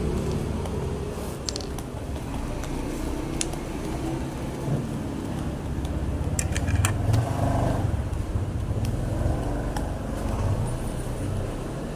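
Steady low background rumble, with a few sharp clicks and faint rustling of paper being cut with scissors.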